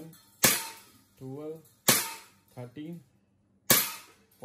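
Umarex Beretta M92A1 blowback CO2 BB pistol firing three single shots about a second and a half to two seconds apart. Each is a sharp crack that trails off briefly.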